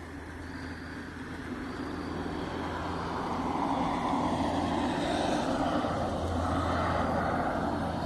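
A road vehicle passing: engine and tyre noise swells over a few seconds, is loudest past the middle, and starts to fade near the end.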